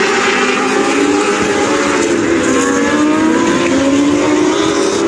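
Several TQ midget race cars running flat out around the oval. Several engine notes overlap, and each rises and falls in pitch as the cars circle.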